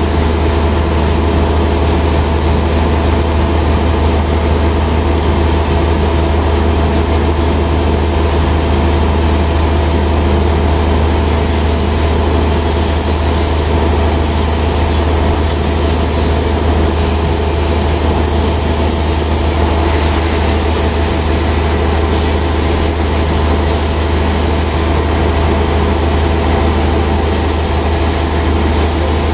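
Sawmill machinery running steadily with a loud deep hum and a steady whine, while the log is set on the carriage rather than being cut.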